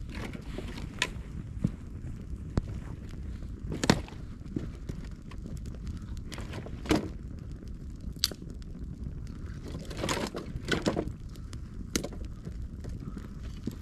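Campfire of dry split wood burning: scattered sharp crackles and pops, the loudest about four seconds in, over a steady low rumble, with a quicker cluster of snaps and rustles about ten seconds in.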